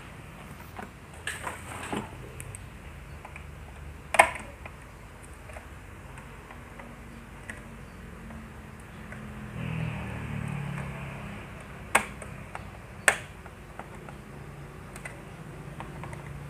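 Sharp clicks and crackles over a low hum as the front-panel knobs and mic sockets of an opened TOA PA amplifier are probed with a tool. The loudest click comes about four seconds in, and the hum swells briefly about ten seconds in. This probing is a search for an intermittent crackle, which the repairer takes to be typical of a loose solder joint at the mic socket or the tone controls.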